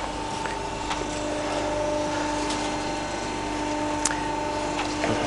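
Bonfu DW38 CNC tube bender switched on: a click, then its motor settles into a steady hum, with a few faint clicks over it.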